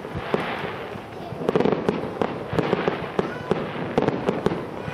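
Fireworks display: a quick run of sharp bangs and crackling bursts, growing thicker about a second and a half in.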